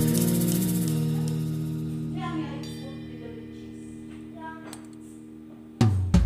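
Background music: an acoustic guitar chord rings and slowly fades, then new strummed notes come in near the end.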